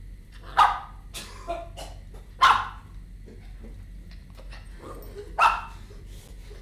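A dog barking three times, about two seconds apart, with a few softer short sounds between the barks.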